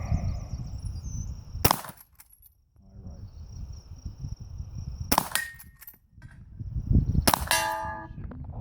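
Three shots from an 1860 Henry lever-action rifle, about three and a half and then two seconds apart. After the second and third shots a steel target rings with a clear pitched tone. A low rumble runs underneath.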